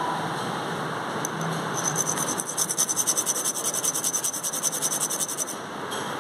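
A small cut gemstone scraped rapidly back and forth on a black abrasive stone: a fast, even scraping rhythm of about eight strokes a second starts about two seconds in and stops shortly before the end, over a steady background hiss.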